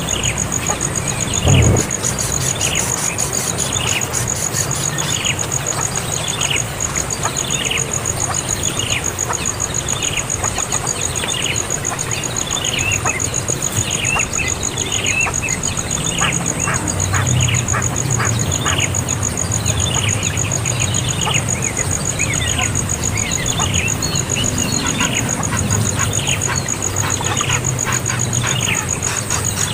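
A young bird calling over and over, about once a second, each call a short falling squawk. A steady high-pitched pulsing whine runs underneath.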